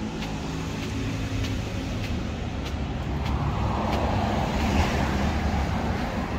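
Street traffic with a steady low rumble; a passing vehicle grows louder and peaks about four to five seconds in, then fades.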